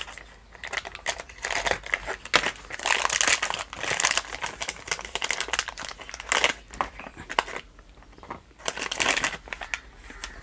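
Thin plastic spare-parts packet crinkling as it is torn open by hand and black rubber coupling pieces are pulled out, in irregular bursts with a short lull about eight seconds in.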